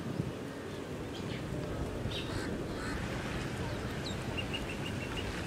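Birds calling over a steady low outdoor rush: a few short calls about two seconds in, then a rising whistle and a quick run of about seven short high pips near the end.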